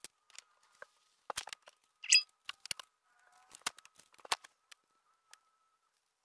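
Scattered light clicks and knocks of household items being handled and moved around on closet shelves, with one brief high-pitched sound about two seconds in as the loudest moment. The handling stops a little after five seconds in.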